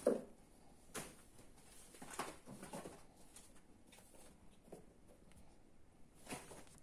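Ragdoll kittens scuffling and pouncing on carpet and a crumpled cloth: soft, irregular thumps and rustles, the loudest one right at the start.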